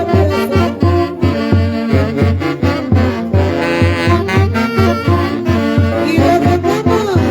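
Live Huancayo orquesta playing an instrumental passage, saxophones carrying the melody over a steady, even bass beat.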